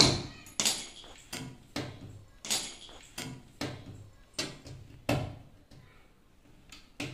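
Repeated sharp knocks and clicks, about one or two a second, from a technician handling and fitting a washing machine during installation, with a short quiet gap near the end.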